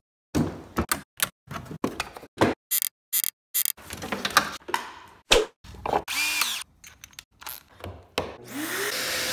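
Scattered clicks and knocks of tools and wood being handled as a board is clamped into a pocket-hole jig. Near the end a power-tool motor spins up with a rising whine and keeps running steadily.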